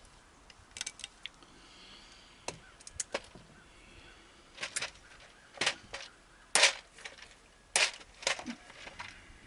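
Irregular sharp clicks and snaps from hand tools working on wiring, scattered through, loudest in a cluster between about halfway and two-thirds in.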